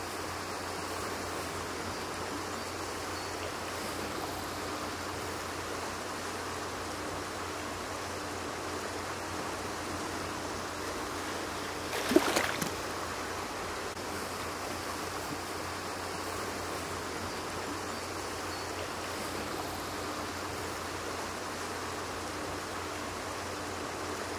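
Creek water running steadily, with a sudden loud splash about halfway through as a black bear lunges into the water after salmon.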